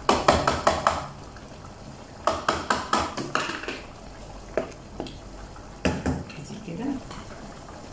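Wooden spatula stirring a thick simmering tomato-and-onion sauce in a deep pan, scraping and knocking against the pan in short runs of quick strokes with pauses between.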